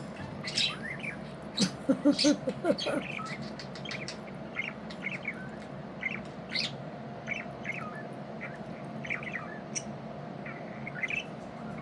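Pet budgies chirping and chattering: short rising and falling tweets scattered throughout, with a few sharp clicks and a busier burst of lower warbling about two seconds in, over a steady background hum.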